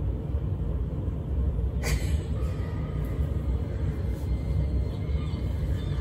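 Low steady rumble with a single sharp click about two seconds in, then short falling bird calls starting near the end as a cartoon soundtrack begins.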